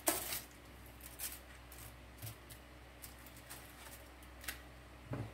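Hands rubbing seasoning into a raw turkey leg, a faint scatter of short clicks and rustles from the meat and the paper and foil lining the pan.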